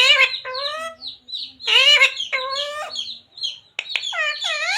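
A pet parrot talking, mimicking human words in about five short, high-pitched phrases with rising and falling pitch.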